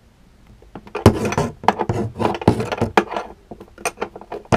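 Handling noise from a camera being picked up off the floor and carried: a dense run of knocks, clicks and rubbing that starts about a second in.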